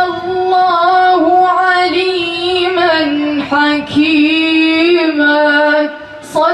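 A woman's voice reciting the Quran in melodic tajweed style. She holds long drawn-out notes with slow turns of pitch, with a short pause near the end.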